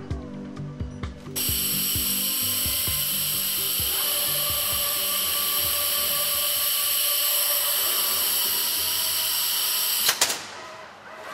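Background music for the first second or so, then a loud, steady, buzzing mechanical whine from a bag de-palletizer's machinery. It cuts in suddenly and stops near the end with a couple of sharp clicks.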